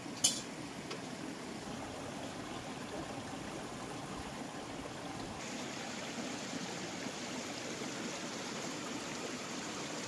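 Steady rushing noise of running water, like a stream, with one sharp click just after the start. The rush turns brighter and hissier about five and a half seconds in.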